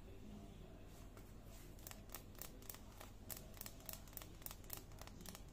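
Faint room tone with a steady low hum; from about two seconds in, faint irregular crackling clicks come several times a second.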